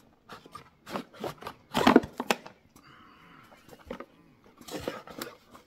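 Packaging handled during an unboxing: an irregular run of rustles, clicks and knocks of cardboard and plastic, loudest about two seconds in.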